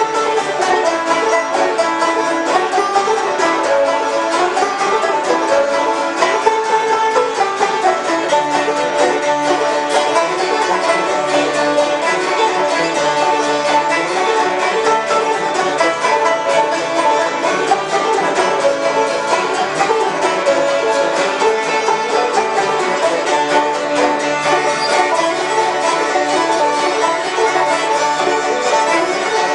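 Old-time string band jam: fiddles, banjo and guitar playing a tune together, steadily and without a break.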